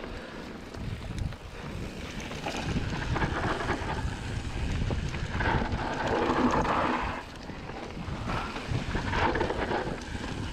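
Wind rushing over an action camera's microphone during a fast mountain-bike descent, mixed with the rolling crunch and rattle of tyres on a dry dirt trail. A louder rush swells about halfway through and cuts off suddenly, and the noise swells again near the end.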